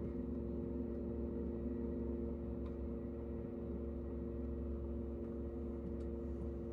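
Cabin noise of a KTX high-speed train in motion: a steady low rumble under a steady hum, with a couple of faint clicks.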